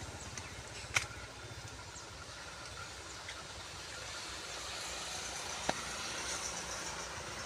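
A train's low rumble, growing slowly louder as it approaches the station, with two sharp clicks about a second in and near the end.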